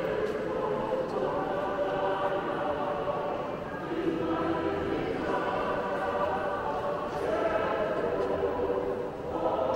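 Choir singing in held chords that change every second or two.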